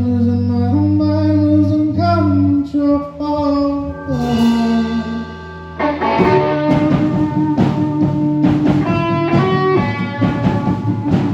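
Rock band playing: held chords over sustained bass notes, then about six seconds in the drums and guitar come in and the music gets fuller and busier.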